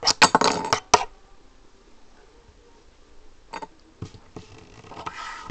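A quick run of sharp clicks and taps in the first second as a hand picks a Lego minifigure up off a table, then a few faint taps.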